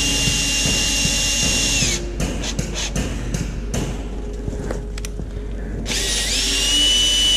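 Handheld power drill/driver spinning up to a steady high whine, stopping after about two seconds and then starting up again about six seconds in, with clicks and knocks of metal tools in between. It is being used on a bolt thread that keeps refusing to go in.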